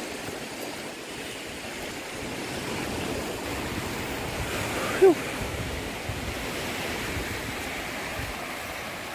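Small sea waves washing onto the shore, a steady rushing hiss, with one short falling-pitched squeak about halfway through.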